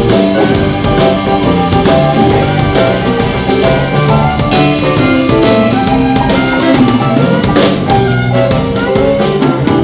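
Live roots band playing an instrumental passage, with a drum kit keeping a steady beat under guitar and other instruments.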